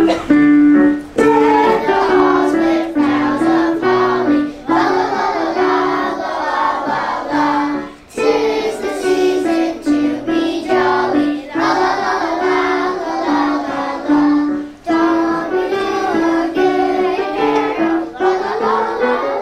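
A class of young children singing a Christmas song together in unison, with instrumental accompaniment, in phrases with short breaks between them.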